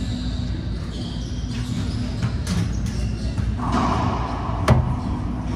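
Racquetball play on an indoor court: one sharp, loud crack of the ball being hit, about three-quarters of the way through, after a few lighter knocks and short high sneaker squeaks, over a steady low rumble.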